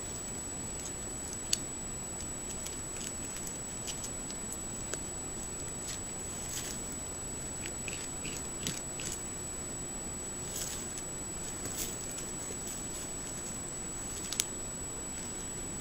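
Beaver gnawing wood at a tree stump: scattered sharp, crunching clicks of teeth on wood, a few at a time, over a steady hiss.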